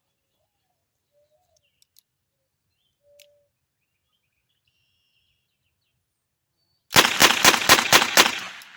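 Heritage Rough Rider .22 Long Rifle single-action revolver fired rapidly: about six shots in quick succession over a second and a half, emptying the cylinder, starting about seven seconds in.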